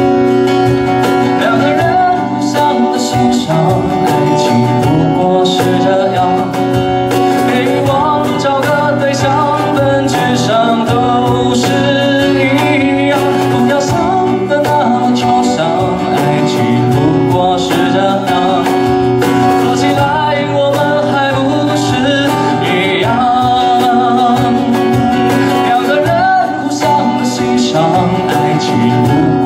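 Acoustic guitar strummed live, with a man singing along into a microphone.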